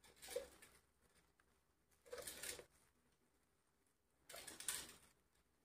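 Faint rustling of a moss ball squeezed in the hands: three short rustles about two seconds apart.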